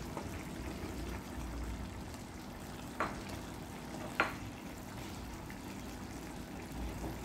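Pork and freshly added carrot slices simmering in a little broth in a pan, a low steady bubbling, with two sharp knocks about three and four seconds in as a wooden spatula stirs the carrots in.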